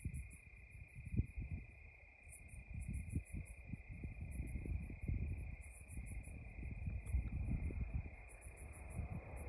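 Crickets chirping in quick, high-pitched pulses that repeat in clusters, over a steady high tone. Irregular low rumbling runs underneath, like wind buffeting the microphone.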